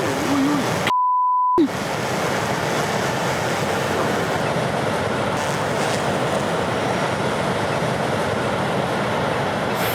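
A short bleep tone about a second in, then the steady roar of giant breaking surf mixed with wind on the microphone.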